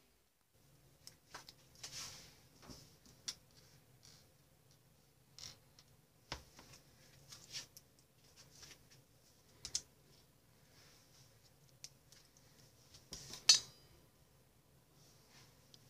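Small plastic LEGO pieces handled and set down on a wooden tabletop: scattered light clicks and taps, the loudest about thirteen and a half seconds in, over a faint steady low hum.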